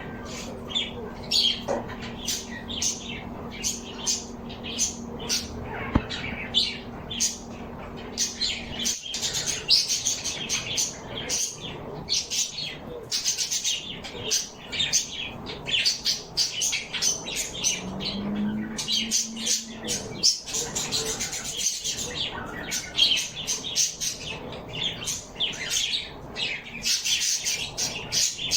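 Many small birds chirping and tweeting rapidly and without pause, with a steady low hum underneath for the first nine seconds or so.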